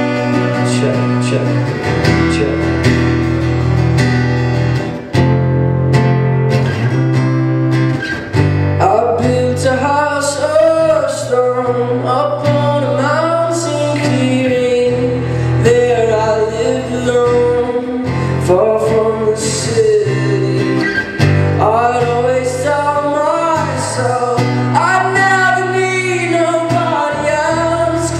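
Acoustic guitar strummed steadily, alone for about the first eight seconds, then joined by a young man's singing voice over the chords.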